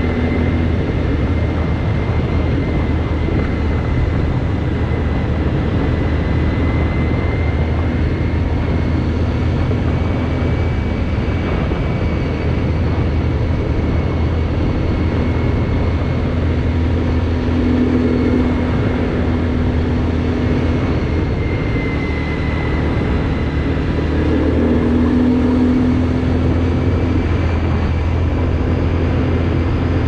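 Linhai 300 4x4 quad's engine running steadily under way on a dirt and gravel road, with a thin high whine over it. The engine note swells briefly twice in the second half.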